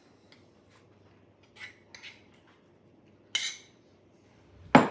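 Spoon clinking and knocking against a plastic bowl and plate while scooping out ham salad: a few light clicks, a sharper knock about three and a half seconds in, and the loudest knock near the end.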